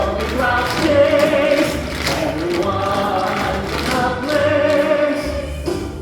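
A group of voices singing together over instrumental accompaniment with a recurring bass line.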